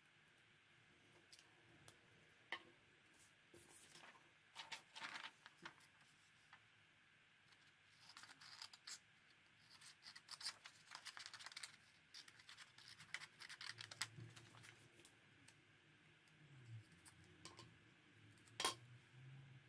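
Small craft scissors snipping and paper rustling, quiet, in scattered clusters of crisp clicks, with one sharper click near the end.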